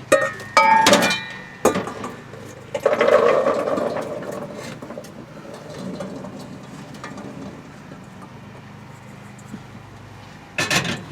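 Sloe berries being tipped into a large pan: a few sharp clanks with a brief ring at first, then a rattle of berries tumbling in about three seconds in that dies away, and another short clatter near the end.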